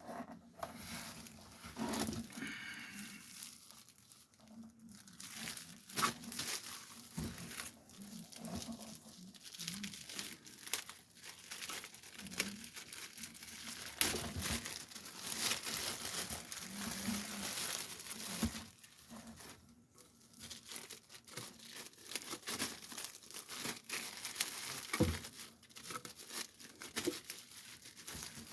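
Plastic packaging being handled and unwrapped: a long stretch of irregular crinkling and rustling, with scattered small knocks and taps.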